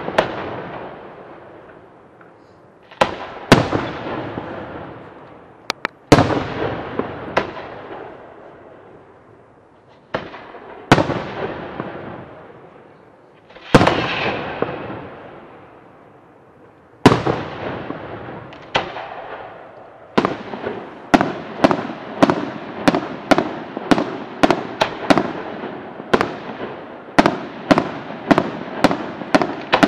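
Aerial firework shells bursting high overhead, each bang trailing off in a long echoing rumble, at first a few seconds apart. About two-thirds of the way through, a quicker run of bangs begins, about two a second.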